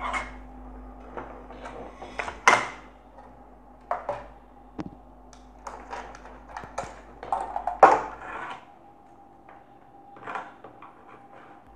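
Handling noise of a power cable being connected to a sewing-machine controller board: a string of irregular sharp clicks and knocks, loudest about two and a half and eight seconds in.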